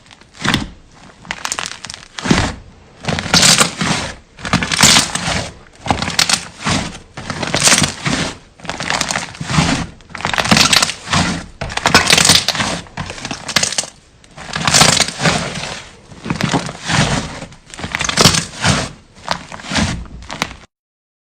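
Slime being squeezed and pressed by hand, crackling and popping in repeated strokes about once a second. The sound cuts off suddenly near the end.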